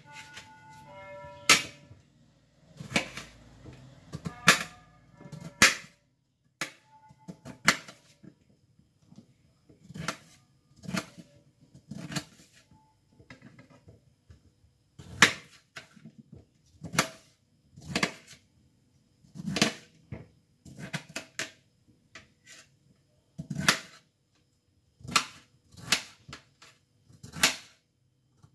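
A kitchen knife cutting a beetroot into chunks on a plate. Sharp, irregular clicks as the blade goes through and knocks against the plate, about one a second.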